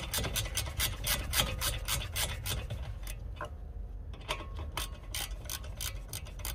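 Ratchet wrench clicking fast as an Allen socket backs out a brake caliper's guide pin bolt, the clicks thinning out about halfway through.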